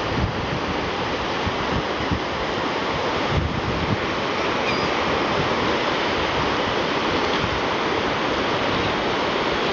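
Ocean surf washing onto a beach in a steady wash, with wind buffeting the microphone.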